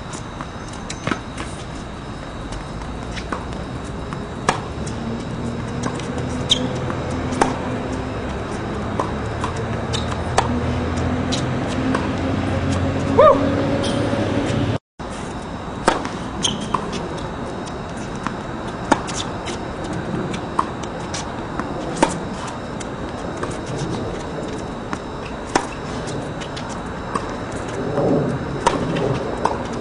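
Tennis balls being struck by rackets and bouncing on the hard court during rallies: sharp single pops about every one to two seconds. Through the first half a low drone slowly rises in pitch underneath, and the sound cuts out briefly about halfway through.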